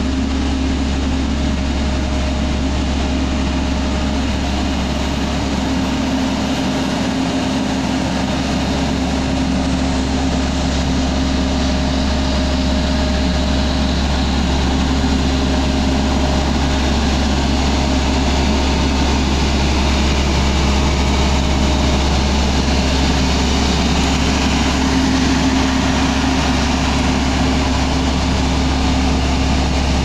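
Diesel engine of a Bomag tandem asphalt roller running steadily with a deep hum, a little louder after about ten seconds.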